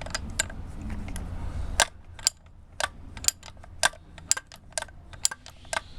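Simplex 85A railroad ratchet jack being worked by its handle, its ratchet and pawl clicking in sharp clicks, about two a second and often in pairs, with a low rumble in the first two seconds.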